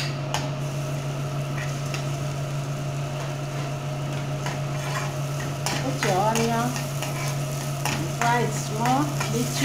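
Diced onion sizzling as it fries in a little vegetable oil in a metal pan, with a metal spoon stirring and scraping against the pan, over a steady low hum.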